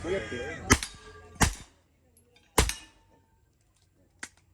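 Gunshots at a shooting range: three loud, sharp shots spaced irregularly in the first three seconds, then a fainter shot near the end.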